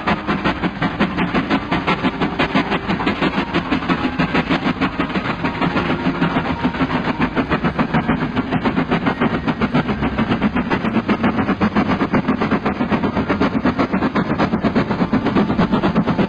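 Steam locomotive chuffing in a fast, even rhythm of about five or six beats a second, as a steam engine hauls a train.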